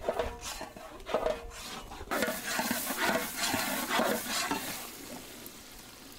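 A ladle stirring and scraping thick rambutan pickle in a large metal pan over a fire, with the oil sizzling loudest in the middle stretch before it fades.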